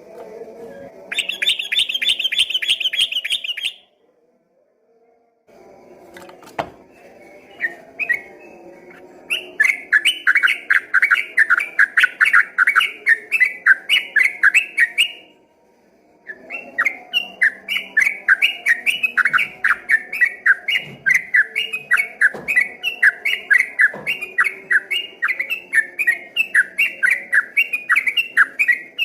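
Sooty-headed bulbul (trucukan) singing a long, fast 'ropel' run of repeated notes, about four or five a second, with brief breaks. A short, higher, denser trill comes near the start.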